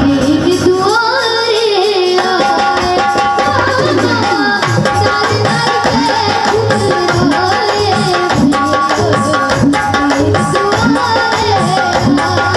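Indian devotional folk music: hand-drum strokes with pitch-bending bass under a sustained melody line. A rising melodic glide comes about a second in, and the drumming gets busier from about four seconds.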